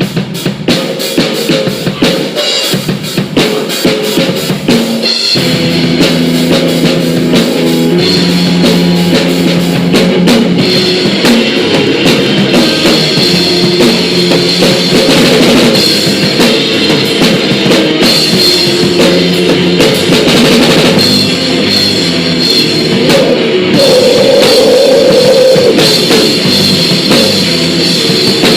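Live rock band playing at full volume, with drum kit, electric guitars and bass. The song kicks off with the opening bars, and the full band settles in about five seconds in.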